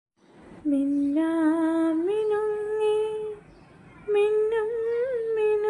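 A voice singing long held notes in two phrases, with a short pause about halfway, the pitch stepping up within each phrase.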